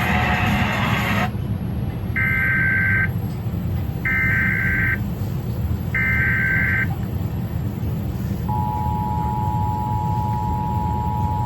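Emergency Alert System test on a TV's speaker: the programme sound cuts off and three SAME header data bursts follow, each a harsh warbling screech of about a second with a second's gap between. Near the end the two-tone EAS attention signal starts, a steady dual tone, over a low hum.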